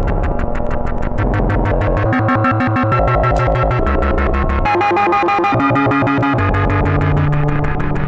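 Anyware Tinysizer modular synthesizer and Vermona DRM-1 mkIII drum synth playing electronic noise music. A sequence of pitched synth notes steps from pitch to pitch over a fast, steady ticking pulse of about six clicks a second.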